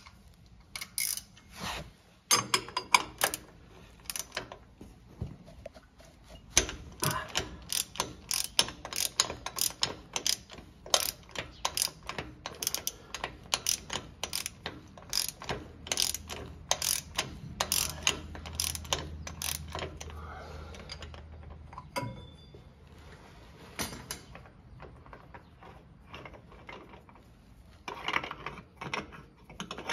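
Socket ratchet clicking, about two clicks a second, as it loosens the aluminum canister-type oil filter housing. The clicking stops about two-thirds of the way through, leaving quieter handling noise, and a short burst of clicks comes again near the end.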